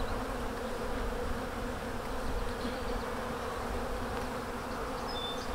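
Honey bees from an opened nuc buzzing steadily, a constant low hum as a frame covered in bees is lifted out.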